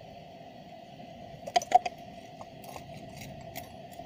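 Enamelled copper wire being unwound by hand from a toroidal transformer core: a cluster of sharp metallic clicks and clinks about one and a half seconds in as the wire is pulled through the ring, then a few lighter ticks, over a steady faint background drone.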